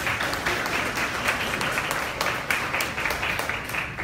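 Audience applauding: many hands clapping at once in a dense, steady run that dies down near the end.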